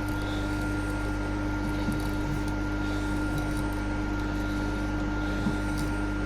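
Workshop milling machine running steadily: a constant motor hum with a steady whine, with a few faint ticks over it.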